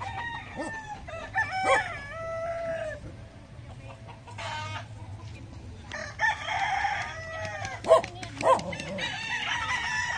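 Several gamecocks crowing and clucking, their calls overlapping, with two longer crows about six and nine seconds in. Two short, sharp calls near the eight-second mark are the loudest sounds.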